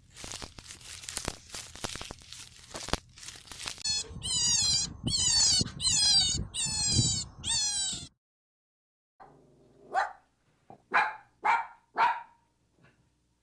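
Young animals calling: a run of about five high, falling cries in quick succession, then, after a pause, four short, sharp calls. Rustling and clicking of handling or movement come before the cries.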